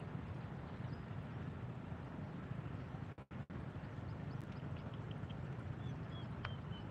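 Steady low rumbling background noise that cuts out briefly about three seconds in. Near the end a bird calls a run of short, high notes that step down in pitch.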